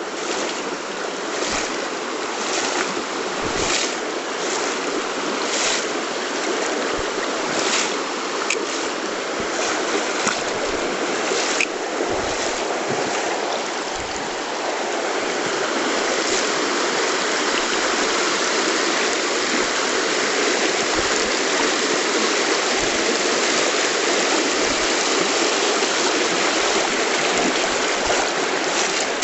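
A river flowing steadily, a constant rush of water. In the first dozen seconds a scatter of short knocks and clicks sits on top of it, and the water grows a little louder about halfway through.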